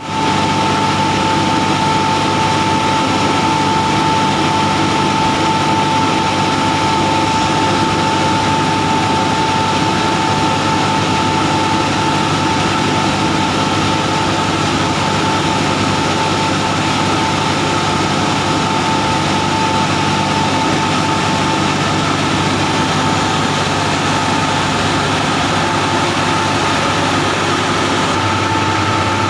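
Reheating furnace plant machinery running steadily and loudly: a constant drone with a steady high whine over a low hum, the kind of noise a combustion air blower and burner make.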